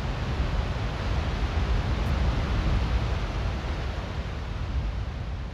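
A steady rushing noise with a deep rumble underneath, slowly fading over the last couple of seconds.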